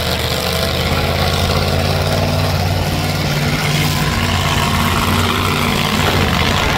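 Demolition derby car engines running, one close engine holding a steady low drone that fades near the end.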